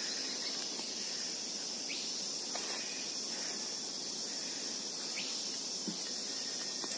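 Steady, high-pitched chorus of insects, with a few faint ticks.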